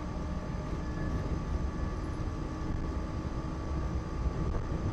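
Walt Disney World Mark VI monorail train running steadily along its beam, heard from inside the cabin: a constant low rumble with a steady high hum above it.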